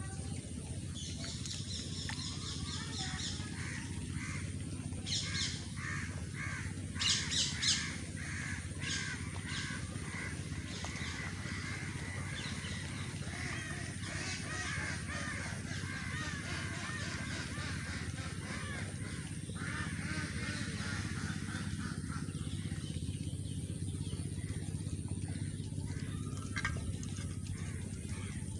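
Birds calling outdoors, with crows cawing, loudest a few times around seven seconds in, over a steady low background noise.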